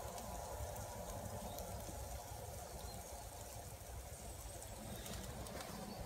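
Wind rumbling on the microphone, low and uneven, with faint crackles from the wood campfire.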